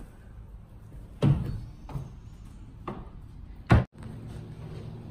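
Four knocking thumps of footsteps on a bus's new AdvanTech plywood subfloor, the first and last the heaviest. The sound cuts off suddenly just after the last one.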